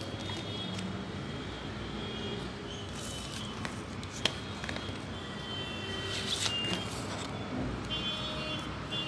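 Cardboard cards being handled and leafed through, with a few sharp clicks, the strongest about four seconds in, over steady background noise. Short high-pitched tones come and go several times.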